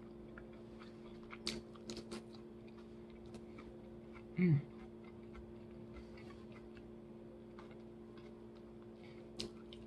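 Close-miked mouth sounds of someone chewing salad: a few scattered soft crunches and wet clicks, and a brief falling hummed "mm" about halfway through, over a steady low hum.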